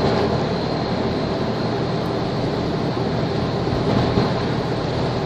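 Steady marine engine drone with the wash of water and wind noise, at an even level throughout.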